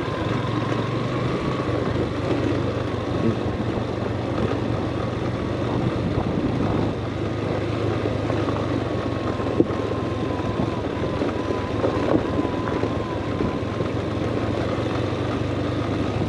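Motorcycle engine running steadily at low speed, with the tyres rolling over a loose dirt and gravel track.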